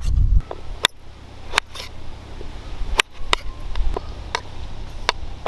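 Knife chopping food, about six sharp, irregularly spaced strokes.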